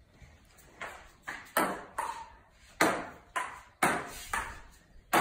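Table tennis rally: the plastic ball clicks off the paddles and the table in an uneven rhythm, about two hits a second.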